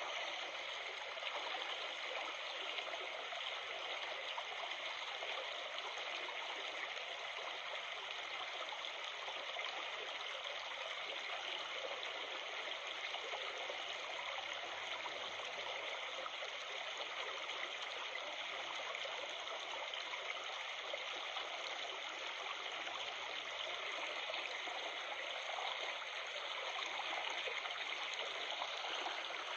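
Steady babbling of flowing stream water.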